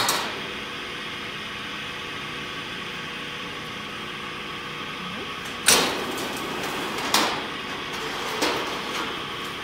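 A band-saw blade knocking against a steel bench as it is handled: three sharp metallic knocks with a short ring, the first and loudest a little past halfway, over a steady machine hum.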